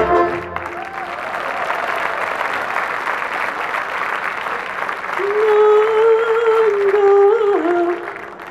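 Audience applauding just after a song ends at an open-air concert. About five seconds in, a single voice calls out over the applause with one long held note that drops in pitch near its end.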